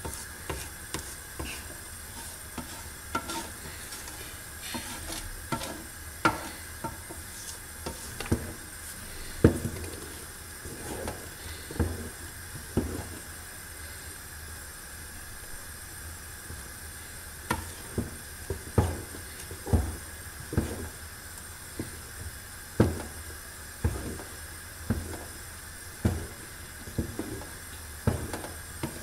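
Wooden spoon stirring a thick sesame and Aleppo pine seed paste in an aluminium pot. It makes irregular scraping strokes and knocks against the pot walls, with a quieter stretch in the middle.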